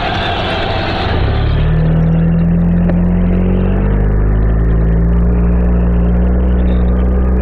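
Motorcycle engine running under way, picked up by a rider-mounted mic. Wide wind hiss fades about a second in, leaving the engine's low, steady drone, which rises slightly in pitch.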